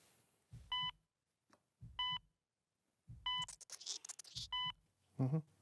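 Heart-rate monitor beeping at a slow, even pace, one short beep about every 1.3 seconds, each with a low thud under it. A brief rustle of handling comes in the middle.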